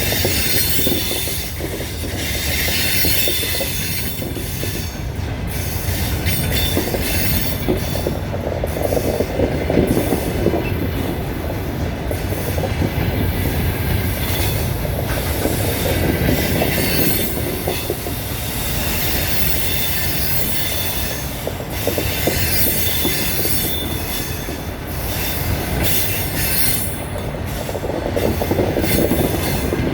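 Double-deck passenger coaches rolling out of the station, their wheels squealing and creaking on the rails, with clicks as the wheels cross rail joints.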